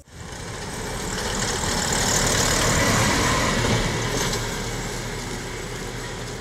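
Engine noise swells to a peak about three seconds in and then slowly fades, with a steady low hum beneath, as of a motor passing by.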